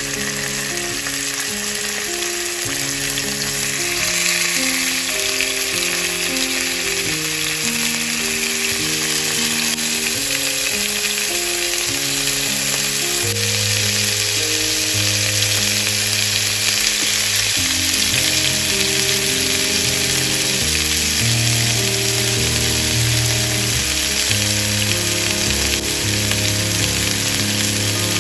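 Rolled chicken breasts frying in hot oil in a non-stick pan over high heat: a steady sizzle that grows a little louder a few seconds in. Soft background music of slow held notes plays underneath.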